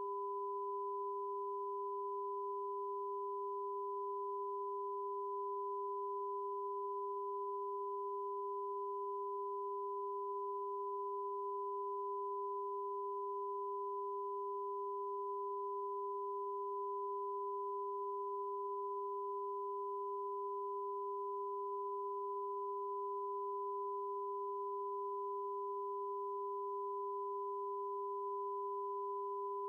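Television test-transmission tone: a steady, unbroken pure tone with a second, fainter and higher tone above it, the audio signal broadcast with a station test card.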